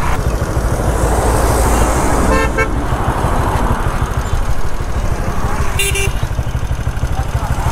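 Motorcycle engine running, with two short vehicle-horn toots, about two and a half seconds in and again about six seconds in.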